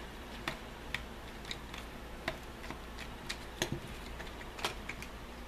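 Small precision screwdriver turning a screw out of a Syma X8C quadcopter's plastic body: sparse, irregular light clicks and ticks, a few of them sharper.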